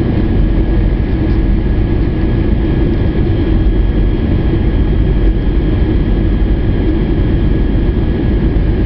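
Steady cabin noise inside an Airbus A321 descending on approach: a loud, even rumble of engines and airflow with a thin, steady high whine over it.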